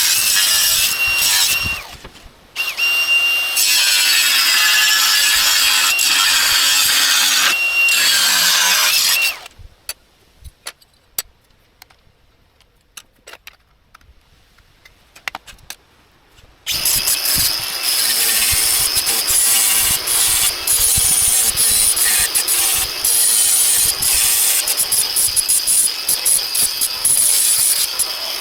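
A power tool cutting, in two long spells with a steady whine in the first. Between them is a quiet gap of about seven seconds that holds only faint clicks and taps.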